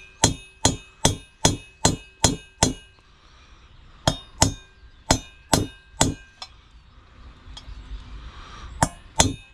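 Hammer tapping an old wheel bearing used as a driver, pressing a new sealed bearing into a motorcycle's rear wheel hub; each blow is a sharp metallic clink with a short ring. The blows come in runs of steady taps, about two and a half a second, with pauses between them and two more taps near the end, as the bearing is worked down evenly into its bore.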